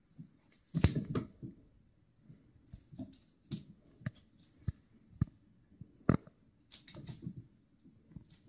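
A kitten pouncing after a feather wand toy on a hardwood floor: irregular taps and thumps of paws and toy on the wood, the loudest about a second in.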